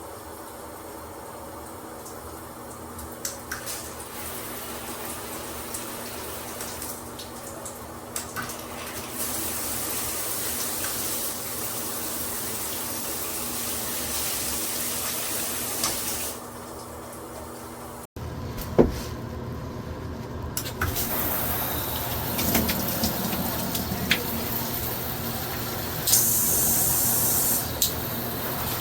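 Water spraying from a VXV 10-inch rain shower head and handheld shower. The hiss changes strength several times as the spray is switched, with a few short clicks.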